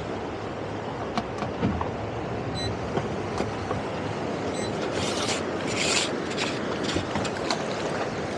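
Towboat's outboard engine running with water rushing past the hull and wind on the microphone, with scattered knocks and clicks. Two short high beeps come in the first half, and there are hissing bursts about two-thirds of the way through.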